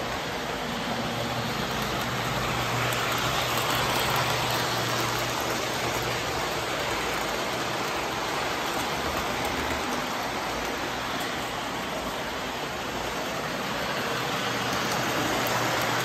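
Standard-gauge electric toy train, a Daylight locomotive pulling streamlined passenger cars, running on three-rail tinplate track: a steady rushing rumble of wheels on the rails, with a steady low hum underneath.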